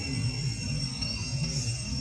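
Background music with a jingling, bell-like sound over a few steady high tones.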